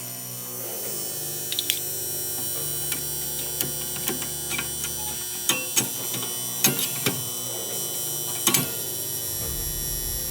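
Steady electrical hum with scattered sharp clicks and knocks, a dozen or so, spread through.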